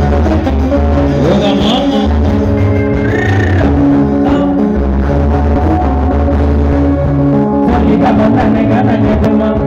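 A live band playing: electric guitars, bass guitar and drum kit with vocals, loud and steady, heard close up.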